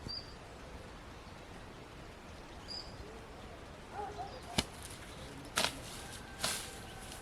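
A series of sharp knocks, about one a second, starting a little past halfway, over a quiet background with a few faint bird chirps.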